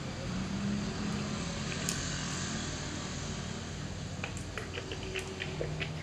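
Motorcycle running at low speed, with its engine humming steadily under tyre and wind noise on a rough, patched asphalt road. One sharp click comes about two seconds in, and a handful of short high ticks near the end.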